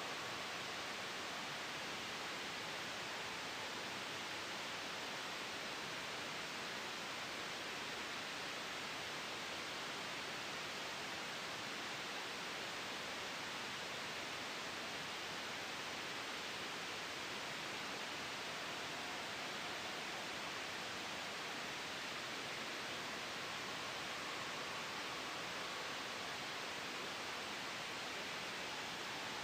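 Steady, even hiss of synthetic white noise for sleep masking, unchanging throughout, its energy weighted toward the upper-middle range.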